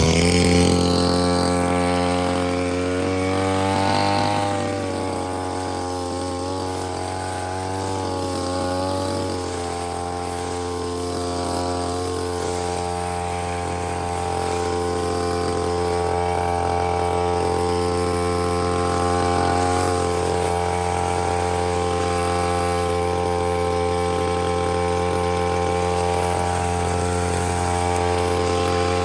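Petrol brushcutter (grass trimmer) engine running steadily at high revs, its pitch wavering slightly a few times.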